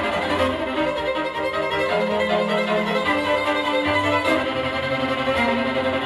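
A recorded music track with held notes that change about every second, played back through Cube Audio Jazzon full-range loudspeakers driven by a Tektron tube amplifier and picked up by room microphones.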